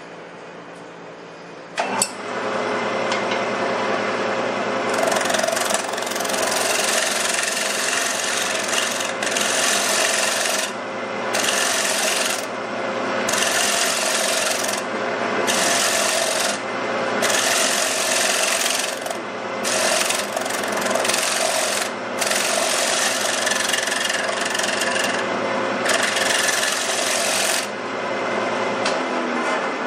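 A wood lathe switches on about two seconds in and hums steadily. A bowl gouge then cuts into the spinning wooden bowl in a series of passes, the scraping hiss of the cut starting and stopping every one to few seconds.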